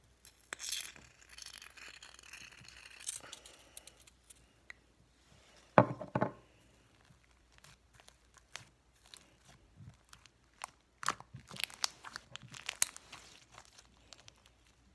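Sticky slime and silly string being handled and pulled apart by hand: scattered small clicks, crackles and tearing sounds, with one loud bump about six seconds in.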